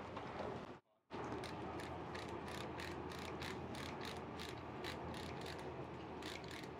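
Hand-held spice grinder being twisted over a salmon fillet, its ratcheting mechanism giving a quick, even run of clicks, several a second. There is a brief dropout in the sound about a second in, then the clicking carries on.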